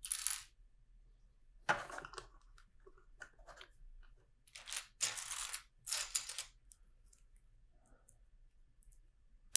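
Loose plastic LEGO bricks clattering and rustling in several short bouts, as pieces are picked through and handled on a pile, then quiet for the last few seconds.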